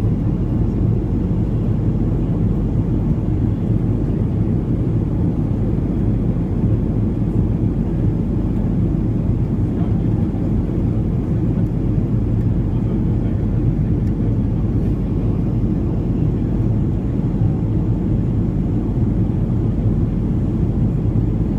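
Ryanair Boeing 737-800 airliner on approach, its CFM56 engines and the rushing air making a steady, loud, low rumble that does not change in pitch or level.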